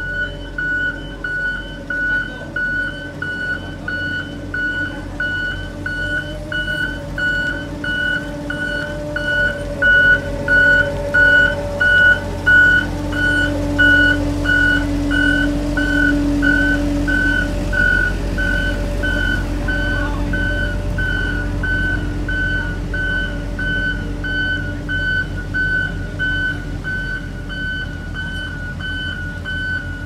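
Pneumatic-tyre road roller's diesel engine running, louder around the middle as it passes close, with a reversing alarm beeping steadily about twice a second throughout.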